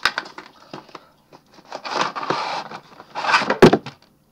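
A cardboard toy box being opened and handled by hand: a sharp click at the start, then scraping and rubbing, and a knock about three and a half seconds in.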